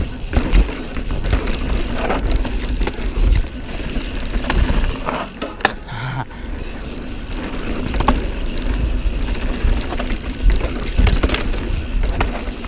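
Mountain bike descending a dusty dirt downhill trail: tyres rolling and crunching over dirt and the bike rattling with frequent sharp knocks over bumps, over a steady low rumble.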